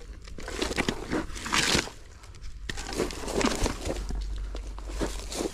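Footsteps crunching and rustling on dry leaves, twigs and sawdust, in irregular bursts.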